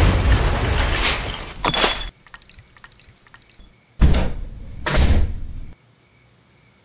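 Heavy thuds and bangs in two loud noisy bursts, each a couple of seconds long, with a few faint clicks between them; the first thud comes as a fist strikes a cardboard box.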